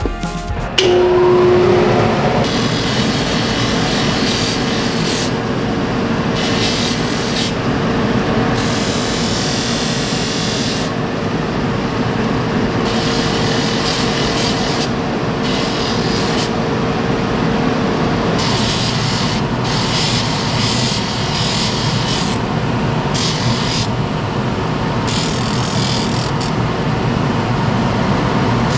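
Abrasive grinding wheel running with a steady hum while a stainless steel scissor blade is pressed against it, a loud rasping grind that comes and goes as the blade is worked on and off the wheel.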